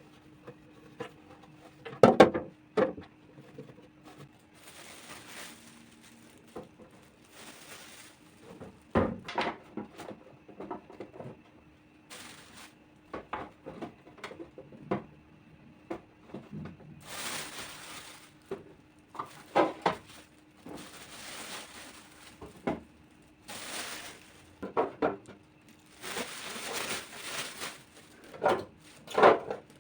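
Kitchen handling sounds: plastic containers and produce being set down and shuffled, with repeated light clacks and knocks and stretches of rustling, over a faint steady low hum.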